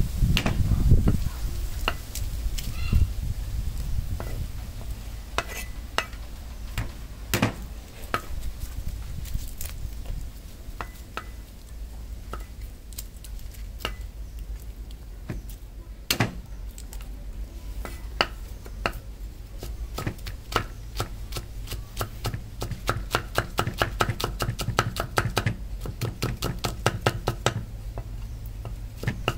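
Knife chopping on a cutting board: scattered single strokes at first, then fast, even chopping of several strokes a second through the last ten seconds or so.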